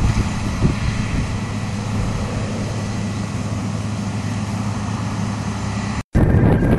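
Heavy farm machinery engine running steadily with a low drone. The sound cuts out for a split second about six seconds in and comes back louder and noisier.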